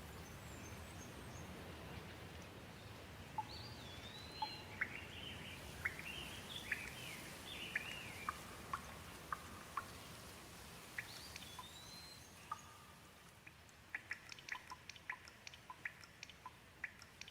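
Gentle rain falling steadily, with a bird calling a series of short chirps and whistled glides through the first two-thirds. Near the end, scattered water drips plink.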